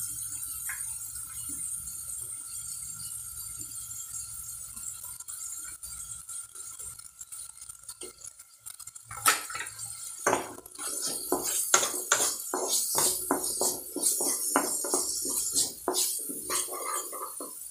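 Onions frying with a faint sizzle on low heat. From about nine seconds in, a wooden spatula stirs them, knocking and scraping against the black kadai in quick, irregular clicks.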